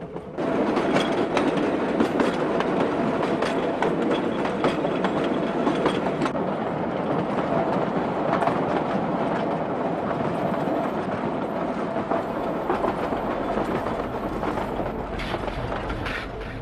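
A train running along the track: a steady, loud rumble and rattle of the cars, with the wheels clicking irregularly over the rail joints. It comes in abruptly about half a second in.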